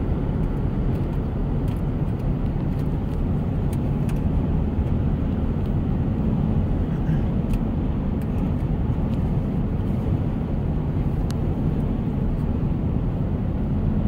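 Car driving at steady speed on a highway, heard from inside the cabin: a constant low rumble of tyres and engine.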